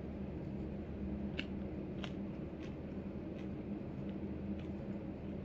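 Eating sounds from a shared plate of bacon and eggs: a galah's beak picking at the food and a person chewing. Faint clicks and crunches come a handful of times over a steady low hum.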